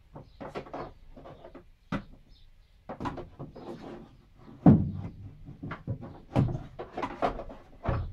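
Tools and containers being moved and set down on metal van shelving: an irregular run of knocks and clatters, with one heavy thud about halfway through.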